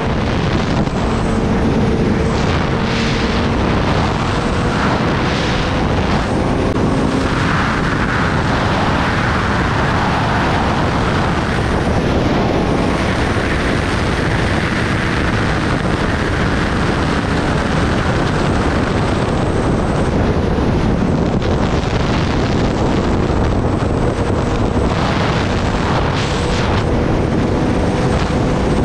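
Wind rushing over the microphone of a Kawasaki sportbike cruising at highway speed. The engine's steady note runs faintly underneath, drifting slightly upward in pitch.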